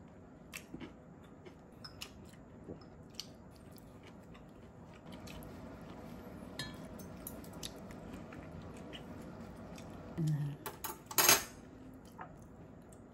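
Stainless steel chopsticks clicking and tapping against ceramic bowls and plates while eating, in scattered light clicks, with one louder clatter of tableware near the end.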